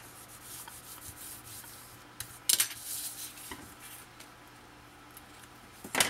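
Paper and cardstock being handled and rubbed against a cutting mat, with a few sharp taps and scrapes about two and a half seconds in.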